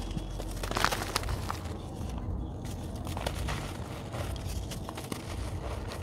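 Dry red dirt block crumbled by hand close to the microphone: irregular gritty crackling and crunching as it breaks apart, with a sharper crack about a second in.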